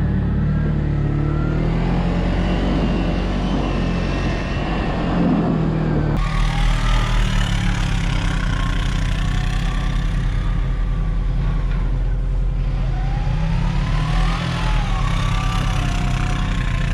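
Skid loader engine running steadily, with an abrupt change in the sound about six seconds in.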